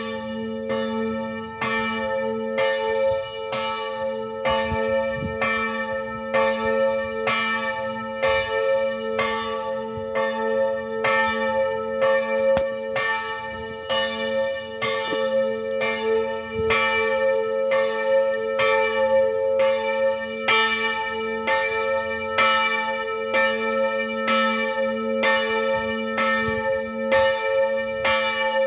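Church bells pealing: a steady, even run of strikes, with several bell tones of different pitch ringing on between them.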